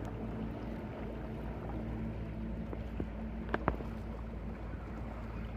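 Sailboat under way on an ePropulsion Pod Drive 6.0 electric motor: a steady low electric hum under a wash of wind and water noise. Two sharp clicks come close together about three and a half seconds in.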